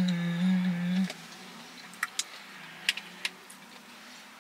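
A long closed-mouth "mmm" of enjoyment hummed while chewing, held on one pitch and stopping about a second in. Then a few light clicks of a fork against a plastic takeout bowl.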